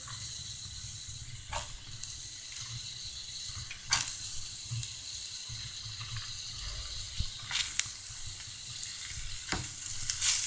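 Steady sizzling hiss of onion, green chillies and dals frying in oil in a kadai, with a few sharp clicks as shredded cabbage is added.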